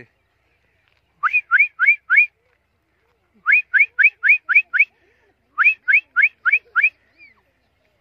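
Rapid runs of short, clean rising whistles, about five a second, in three bursts of four, eight and six whistles with pauses between.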